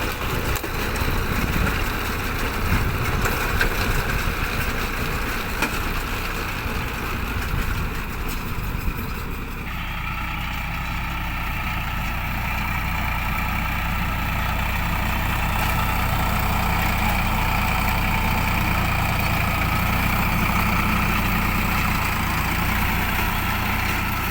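Baler working, driven by a running engine, with an irregular clattering machine sound; about ten seconds in the sound changes suddenly to a steadier engine hum.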